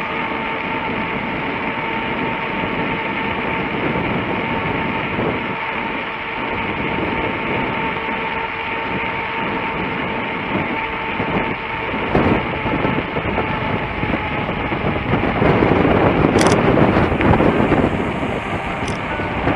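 Steady rolling rumble of a bicycle riding along a cracked asphalt path, picked up by a handlebar-mounted camera, with a faint steady whine underneath for the first twelve seconds. The rumble grows louder and rougher for a few seconds near the end.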